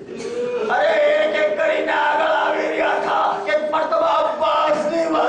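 Congregation of mourners weeping and wailing aloud together, many voices overlapping, with a man's loud, drawn-out lamenting voice held over them.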